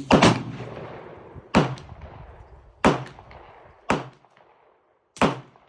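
Five pistol shots fired with subsonic .22 rimfire ammunition (CCI Quiet-type rounds), each a sharp crack, spaced roughly a second or so apart.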